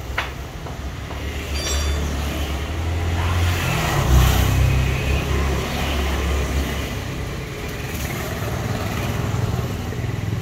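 Road traffic passing: a motor vehicle's low engine rumble swells to its loudest about four seconds in, then eases off.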